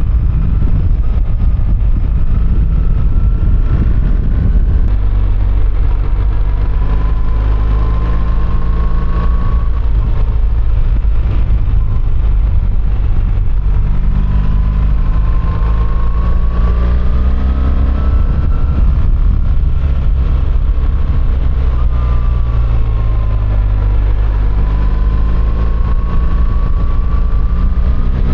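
BMW R1300GS's boxer-twin engine running under way, its note rising and falling several times as the throttle is opened and rolled off, over a steady heavy rumble of wind and road noise.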